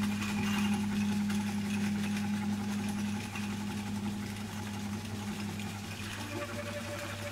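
Piano, double bass and drums trio improvising live in a droning, repetitive texture: steady low tones are held throughout, strongest in the first few seconds, under a continuous rustling wash of percussion.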